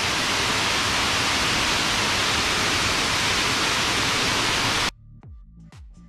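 Steady rush of water falling from a 75-metre waterfall. It cuts off suddenly about five seconds in, giving way to quiet music with sharp ticks.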